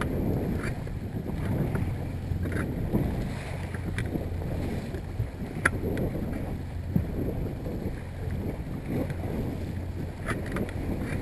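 Yamaha 70 hp outboard running steadily at trolling speed, about 1,200 RPM, as a low hum under wind on the microphone and water washing along the hull. A few short clicks or knocks stand out.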